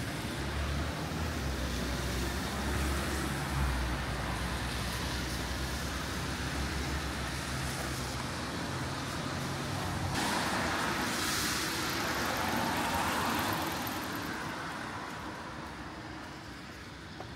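Road traffic on a wet street: a vehicle engine hums low and steady for the first ten seconds or so. Then a car passes with a sudden rising hiss of tyres on wet road that fades away over the last few seconds.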